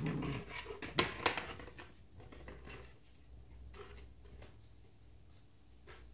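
Rottweiler puppy playing with a knotted chew bone on brick paving: scattered scrapes and taps as the bone and paws move on the stones, with two sharp knocks about a second in.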